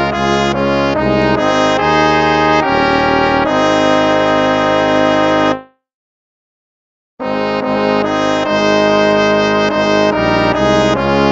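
Instrumental hymn music in slow, held chords with a brass-like sound. The music stops on a held chord about halfway through, and after a second and a half of silence it starts again.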